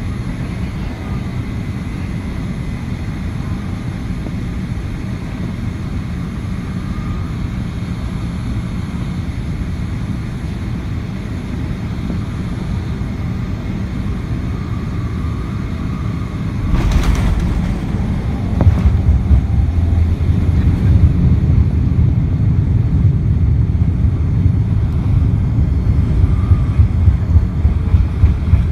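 Cabin noise of a Boeing 787-9 on final approach: a steady rush of airflow and engine, then about 17 seconds in a sudden thud as the main gear touches down. A second bump follows about two seconds later, and from then on a louder, rougher rumble of the landing roll.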